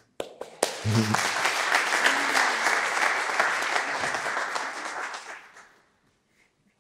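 Congregation applauding, the clapping rising almost at once and fading away near the end, with a voice calling out about a second in.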